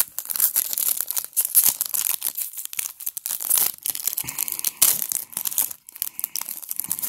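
Foil wrapper of a Panini Prizm basketball card pack being torn open and crinkled in the hands: a dense run of crackling and ripping that keeps going while the cards are pulled out.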